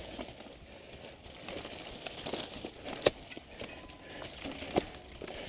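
Mountain bike riding over a rough dirt trail: tyres crunching on the soil, the bike rattling and clacking over bumps, with two sharp knocks about three and five seconds in.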